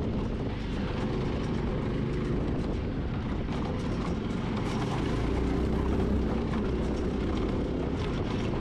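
196cc single-cylinder OHV engine of a 200GK Piranha Lite mini buggy running steadily under way as the buggy is driven, a little louder for a moment about five seconds in.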